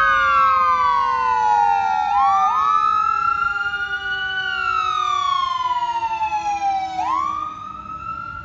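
Fire engine siren wailing, its pitch sweeping slowly down and back up in cycles of a few seconds, with a second siren tone overlapping it and a lower tone gliding slowly down beneath. It fades noticeably near the end as the engine moves off.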